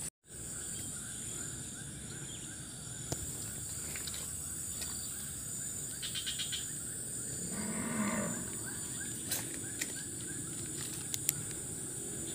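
A cow moos once, a low call lasting about a second, partway through. Under it runs a steady high-pitched insect drone.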